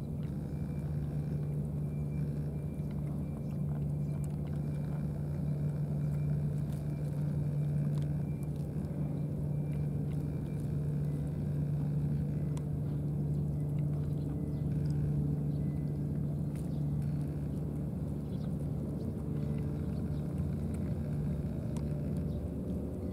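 A steady, unbroken low engine hum, with faint scattered ticks over it.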